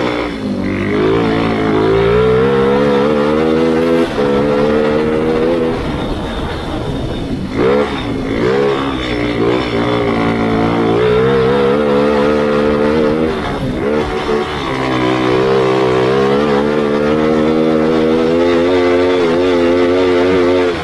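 Grass kart engine revving hard under load. The pitch climbs steadily, drops off sharply about four seconds in, then falls and climbs again twice more, lap-style.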